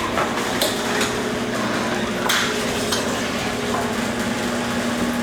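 Garage door running on its opener, with a steady motor hum and metal rollers clanking and clicking along the steel tracks. The door sticks partway because of a small bend in one of the rails.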